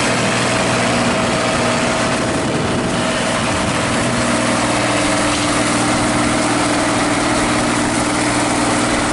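International Harvester 5288 tractor's turbocharged six-cylinder diesel running steadily under load, pulling a six-bottom moldboard plow.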